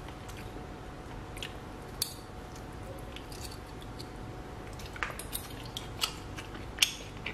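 Quiet knife-and-fork sounds on a ceramic plate as roast chicken skin is cut and lifted, with scattered small clicks and taps. Near the end come a few sharp little crunches from chewing the crisp skin.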